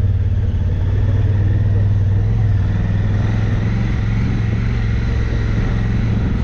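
Enduro motorcycle engine running steadily under way, a constant low hum of rapid firing pulses that holds an even pitch.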